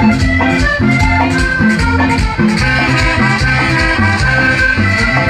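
Live Latin dance band music played loud through the sound system, with held melody notes over a bass line and a steady shaker beat.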